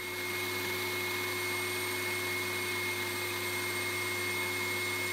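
Countertop blender motor running steadily, grinding toasted sesame seeds with oil into tahini, with a steady high whine over the motor noise.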